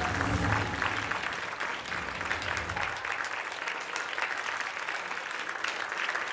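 Audience applauding steadily, a dense crowd clapping.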